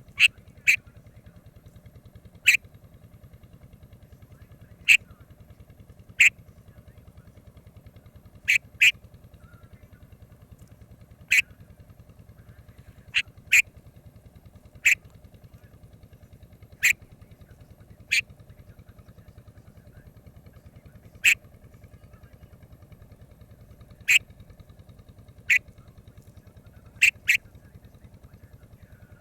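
Bulbul giving short, sharp call notes, singly or in quick pairs, every one to three seconds, over a steady low hum.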